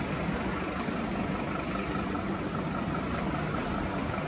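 Steady, distant engine rumble with a faint constant hum, unchanging throughout.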